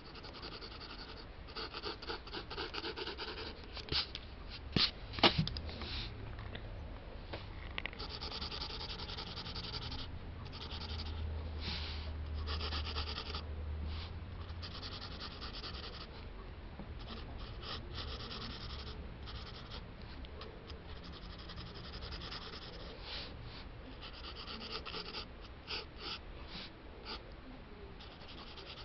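Pencil sketching on paper, close up: runs of scratchy strokes starting and stopping. A few sharp clicks about four to five seconds in stand out as the loudest sounds.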